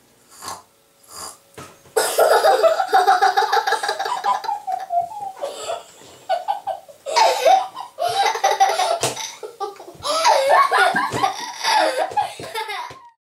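A young child laughing hard, high-pitched and pulsing, in three long bouts with short pauses between them. The laughter starts about two seconds in and cuts off suddenly near the end.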